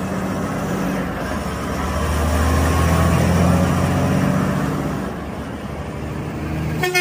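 Diesel engine of a Volvo heavy-haul tractor unit running as it pulls a multi-axle low-loader carrying an excavator past: a steady low drone that swells to its loudest about three to four seconds in, then eases off.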